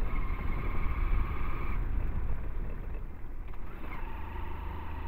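Hero Splendor 100 cc motorcycle's single-cylinder engine running steadily while riding, with heavy low wind rumble on the helmet-mounted microphone.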